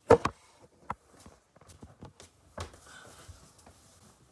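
Handling noise of a phone or camera being moved and set in place: two loud knocks right at the start, then scattered softer taps and shuffling.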